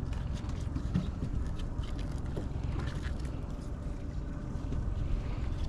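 Steady low rumble aboard a small boat on the water, with faint light taps and rustles of rope being handled.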